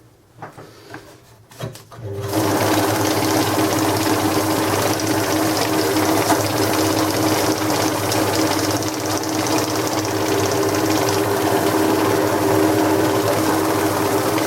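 Banknote counting machine: a few light clicks, then about two seconds in it starts up and runs steadily, with a motor hum and a fast rattle of notes being fed through.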